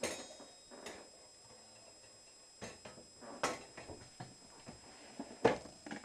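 Dishes and kitchenware being handled: five or six separate knocks and clinks at uneven intervals, the loudest near the end.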